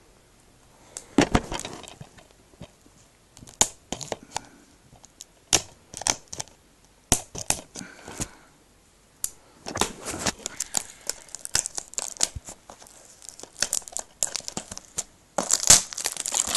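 Plastic wrapping being torn and peeled off a new DVD case: irregular sharp crinkles and crackles, turning into a dense, steady crinkling about a second before the end.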